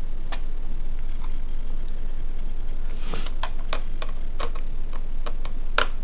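Small, irregular clicks and ticks of a screwdriver driving screws into a laptop's plastic bottom cover, over a steady low hum.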